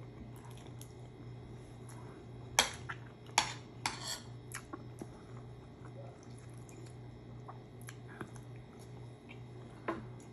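Eating at a table: a few sharp clinks of a spoon against dishes, bunched a little after two seconds in, with one more near the end, over a steady low hum.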